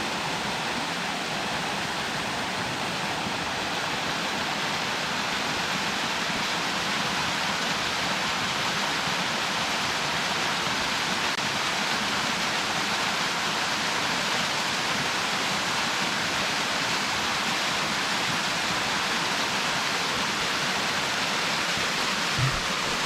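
Waterfall running fast, a steady, even rush of falling water. A short low thump near the end.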